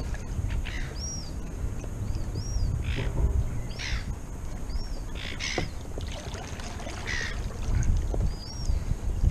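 A hooked fish splashing at the water's surface beside a kayak: several short splashes over a low wind rumble on the microphone. A bird gives short high chirps every second or two.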